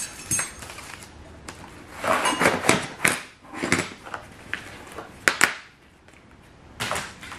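Plastic shrink wrap and its backing sheet rustling as they are pulled off a set of laser-cut 3/16-inch steel plates, with the steel pieces sliding and clinking against each other on the table. Sharp metal clinks come about five and seven seconds in.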